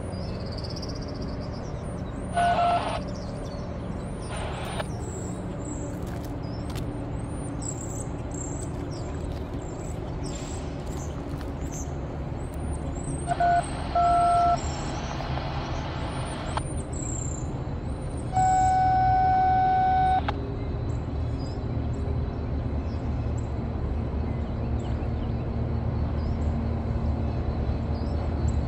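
Steady low rumble of traffic and an approaching diesel train, growing a little louder toward the end. Over it come loud horn blasts: a short one about two and a half seconds in, two short ones around fourteen seconds, and one long blast of about two seconds near twenty seconds.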